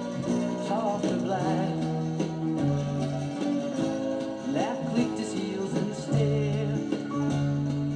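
Country-folk song playing from a vinyl record on a portable record player: an instrumental passage led by guitar.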